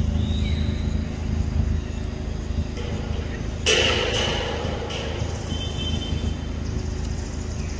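Steady low rumble of engine noise, like nearby motor traffic, with a sudden short, shrill burst about three and a half seconds in, and faint high chirps near the start and again later.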